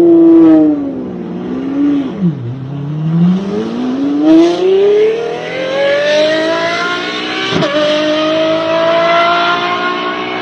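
Car engine revving up and down twice, then accelerating hard in one long rising pitch. About seven and a half seconds in there is a short crack and the pitch drops a step at a gear change, then it keeps climbing.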